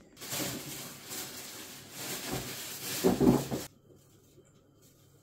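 Rustling and rubbing handling noise lasting about three and a half seconds, with a heavier rumble near the end, then stopping suddenly.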